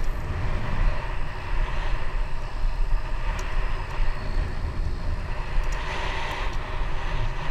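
Wind rushing over a GoPro microphone on a moving bicycle, a continuous low rumble, with the bicycle's tyres rolling on the asphalt path.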